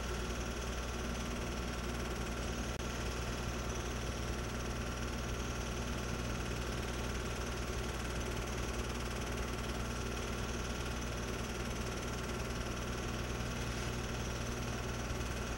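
Home-movie film projector running, giving a steady, even motor hum and whir with no change in pace.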